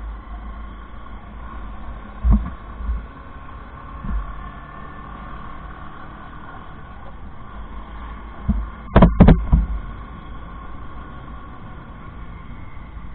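Motorcycle engine running at low road speed with steady road and wind rumble. There are a few thuds about two to four seconds in and a louder cluster of thuds about nine seconds in.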